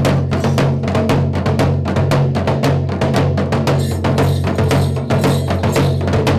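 Kerala para and thudi folk drums beaten in a fast, continuous rhythm of many quick strokes a second for the Poothan and Thira ritual dance, with a steady low hum underneath.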